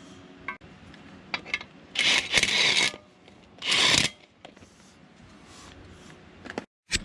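Ratchet wrench run down in two quick raspy bursts, about two seconds in and again a second later, as bolts on the engine mount's T-bracket are tightened, with a few light metal clicks between.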